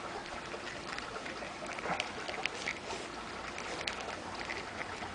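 Handling noise of a plastic action figure and its accessories: light rubbing and a few small plastic clicks, the sharpest about two seconds in and again near four seconds.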